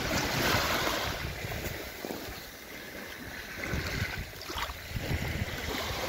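Small sea waves breaking and washing up over a fine-pebble shore. The wash is strongest about a second in, eases off, then builds again near the end.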